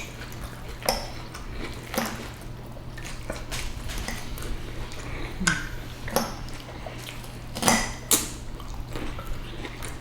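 Eating utensils clinking and scraping against plates and bowls in scattered short clicks, over a faint steady low hum.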